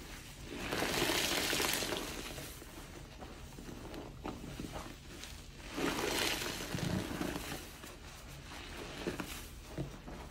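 Soapy water gushing out of a soaked, grid-scored foam sponge as it is squeezed over a tub of suds, in two long squeezes, the first just under a second in and the second around six seconds, with quieter wet squishing between.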